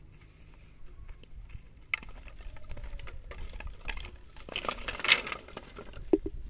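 Rustling with scattered light clicks, then a clatter of bamboo poles and tied-on plastic bottles being laid on the ground about four and a half seconds in. Near the end comes a dull knock as a plastic bucket is set down.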